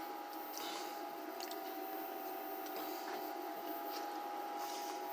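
Steady electrical hum with a faint whine and hiss from a radio and amplifier test bench, with a few faint clicks.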